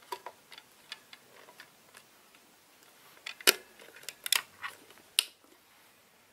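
Light plastic clicks and rattles of IV tubing being handled in a volumetric infusion pump's open tubing channel, then several sharp plastic clicks and knocks as the pump door is pressed shut and latched, the loudest about three and a half seconds in.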